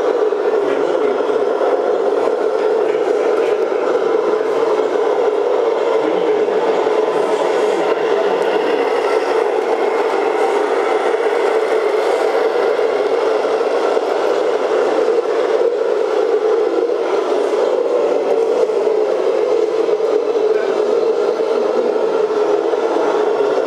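Radio-controlled scale model trucks running on a hard indoor track: a steady mechanical whir with scraping and rattling, unbroken throughout.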